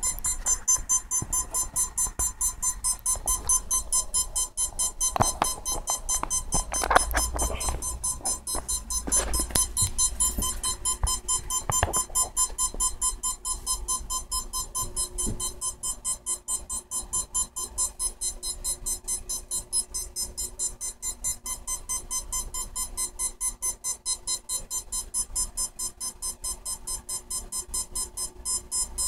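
Brushless ducted-fan motor beeping in short, even pulses, about four a second, as the ESC drives pulses through its windings without spinning the fan: the motor 'trying to move'. A few handling clicks and knocks sound in the first half.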